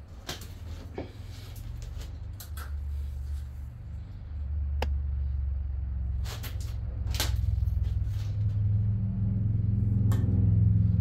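A low rumble that grows steadily louder, with a few sharp clicks and knocks from chainsaw bars and parts being handled on a wooden workbench.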